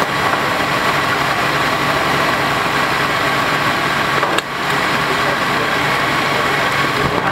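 A large vehicle's engine idling steadily, with a constant high whine over the running. The level dips briefly about four and a half seconds in.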